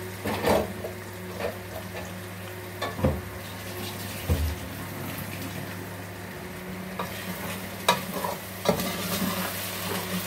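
Chicken and tomatoes sizzling in a pan while being stirred, the spoon knocking against the pan now and then, more often near the end. A steady low hum runs underneath.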